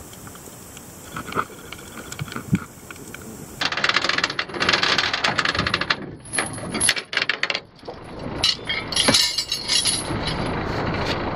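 Anchor chain rattling and clanking over the boat's bow as it is hauled in hand over hand, with sharp metallic jangles. Before it, about three and a half seconds of soft underwater hiss with faint clicks.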